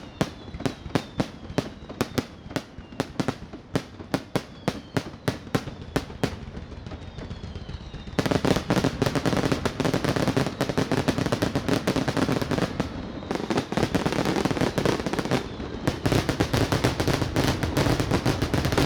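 Fireworks display: a rapid, even run of sharp bangs, about three a second, with faint falling whistles, then from about eight seconds in a dense, continuous crackle of many bursts together that thins briefly and picks up again near the end.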